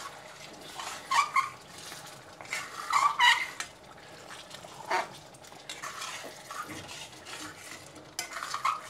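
Metal spatula stirring and scraping pieces of boiled mutton liver through oily masala in a steel kadai, bhunao-style frying on low heat: several separate wet scraping strokes, loudest about a second and three seconds in.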